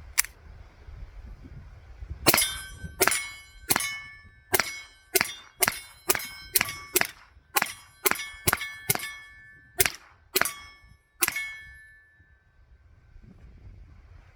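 Taurus TX22 .22 LR pistol firing CCI Mini Mag rounds: one shot at the start, then after a short pause about sixteen rapid shots at roughly two a second, each with a ringing metallic clang that fades after the last. The steady string without a stoppage comes during a 100-round reliability test that ended with no malfunctions.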